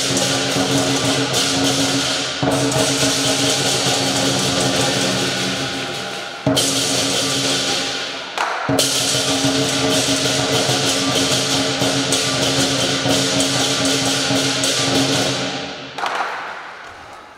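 Southern lion dance percussion, big drum with gong and cymbals, playing a fast, continuous beat with ringing metal tones. It dips briefly a few times and dies away near the end.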